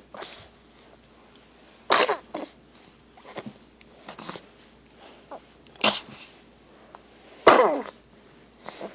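A harsh coughing and choking fit: a series of sudden hacking coughs, loudest about two seconds in, again just before six seconds, and hardest about seven and a half seconds in, with smaller gagging coughs between. It is a recurring fit of the same kind that has gone on for three months.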